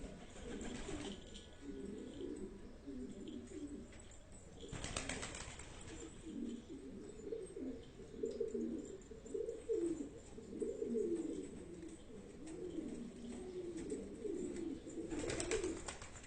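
Domestic pigeons cooing over and over in low, rolling calls, with short bursts of wing-flapping about five seconds in and near the end.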